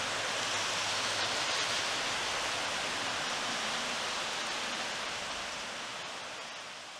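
Steady rushing of a creek in flood, fast brown floodwater pouring under a road bridge; it fades out near the end.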